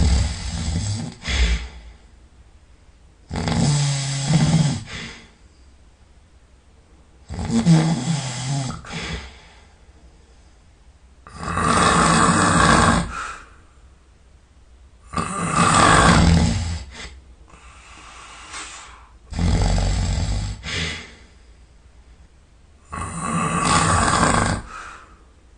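A man snoring in deep sleep: loud snores about every four seconds, seven in all, each lasting a second or two, with quiet gaps between.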